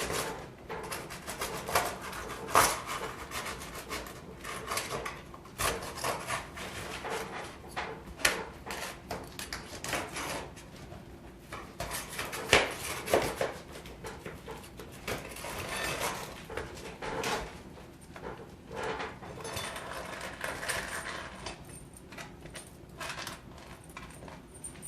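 Irregular scraping, rubbing and short knocks of a metal prying tool working under dimensional asphalt shingles to lift them off the roof.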